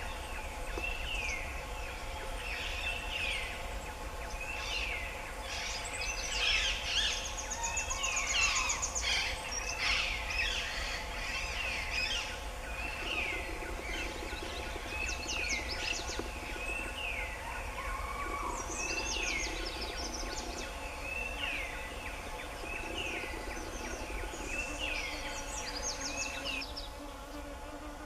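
Birds calling: a short downward-slurred call repeated about once a second, with bursts of rapid high trills now and then, over a steady insect drone.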